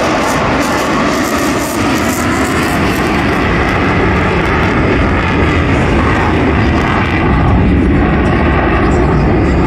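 Military fighter jet flying overhead, its engines a loud, steady rumble.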